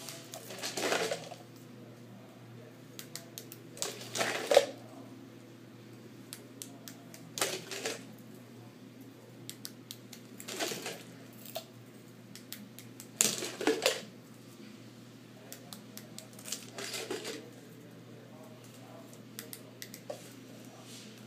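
Small metal LED flashlights being handled on a desk, clinking and clattering against one another. There are about half a dozen short bursts a few seconds apart, with light clicks in between.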